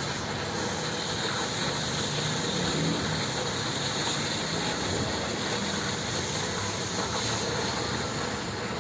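Steady hiss of an automatic steel cutter's cutting torch working through steel plate.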